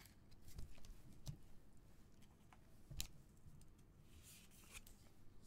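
Faint handling noise from a clear plastic trading-card holder in gloved hands: a few small clicks, the sharpest about three seconds in, and a brief soft rustle just after four seconds.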